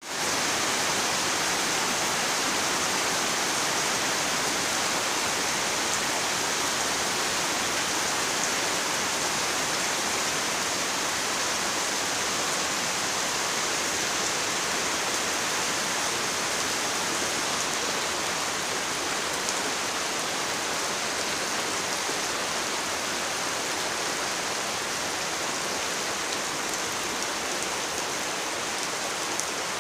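Heavy rain falling onto fast-flowing muddy floodwater, the rain and the rushing water together making a steady, dense hiss that eases slightly in the second half.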